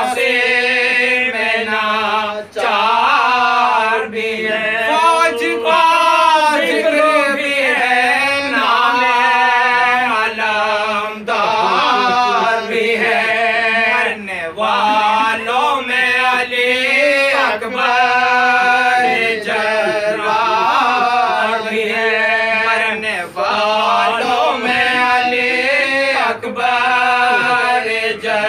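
Male voices chanting an Urdu elegy for Imam Husayn (a Muharram marsiya) unaccompanied, in long melodic phrases with short breaks between lines.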